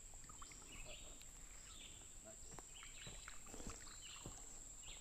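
Faint creekside ambience: insects keep up a steady high-pitched buzz, with short chirps repeating every half second or so and a few light scattered clicks.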